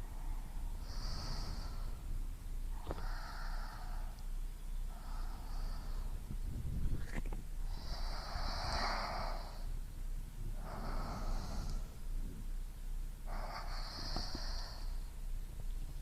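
Close-miked human breathing recorded binaurally: six slow, hissy breaths about every two to three seconds, the one near the middle the loudest and longest, over a low steady rumble.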